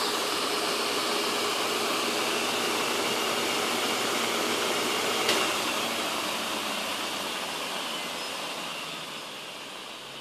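Four-platter Seagate Medalist hard drive spindle motor spinning at about 15,000 RPM, a steady whir with air rush and a high whine. A click comes about five seconds in, then the whir fades and drops in pitch as the platters coast down with the power cut, the motor regenerating as it slows.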